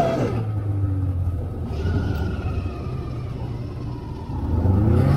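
Snowmobile's two-stroke engine running while riding, easing off a little around three to four seconds in, then rising in pitch as the throttle opens again near the end.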